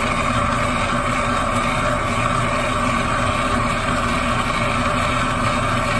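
Gas torch burning steadily with a large, bushy flame, preheating a ceramic melting crucible.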